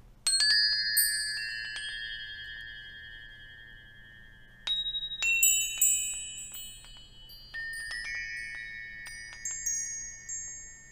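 Metal chimes ringing: a flurry of high bell-like tones struck at the start, another about midway and another in the second half, each left to ring and fade slowly.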